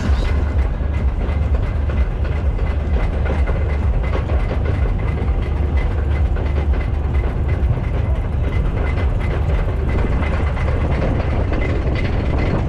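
A spinning roller coaster car being hauled up the lift hill by its chain: a steady chain rattle with rapid ticking over a heavy low rumble.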